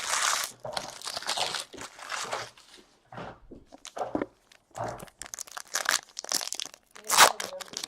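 Trading card pack wrapper crinkling and tearing as it is opened by hand, in irregular rustles with a louder crackle near the end.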